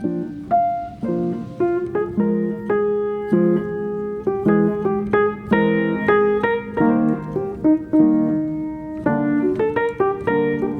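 Background piano music: chords and melody notes struck in a steady flow, with a quicker run of notes near the end.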